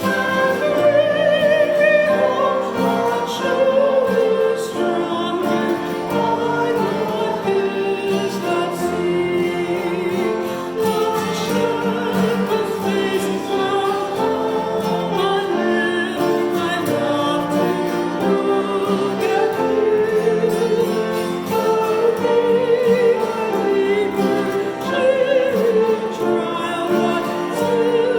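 Sacred music: voices singing a slow piece together, with vibrato.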